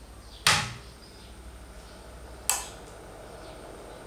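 Power rocker switch of a homemade high-power amplifier clicking on about half a second in, with a low thump as the amplifier powers up, then a second sharp click about two seconds later. A low steady hum runs underneath.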